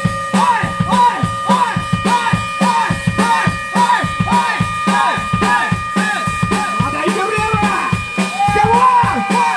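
Live rock band playing loud: drum kit and electric guitar, with a short high figure repeated about three times a second over held notes. A singer's shouted voice comes in near the end.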